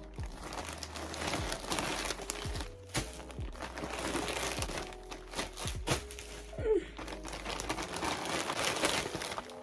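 Plastic packaging crinkling and rustling in irregular bursts as it is handled and unwrapped.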